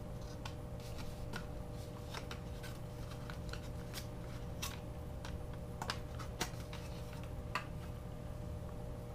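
Irregular light clicks and taps of small plastic items being handled, a few of them sharper in the second half, over a steady low hum.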